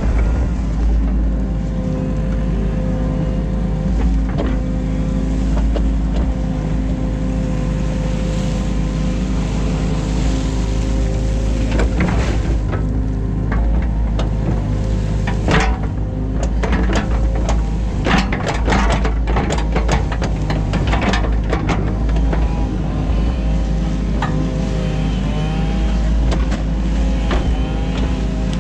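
New Holland Kobelco E50.2 mini excavator's diesel engine running steadily under hydraulic load, its tone bending up and down as the boom and ditch-cleaning bucket move. Scattered knocks and clatters around the middle, from the bucket working through mud and brush.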